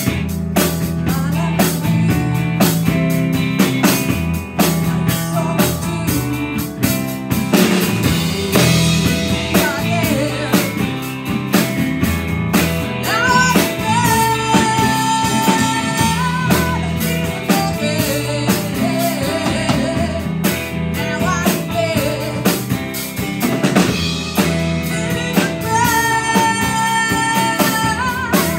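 Live band playing a rock-blues song: a woman singing over electric guitar, bass guitar, keyboard and drum kit, with long held notes about halfway through and again near the end.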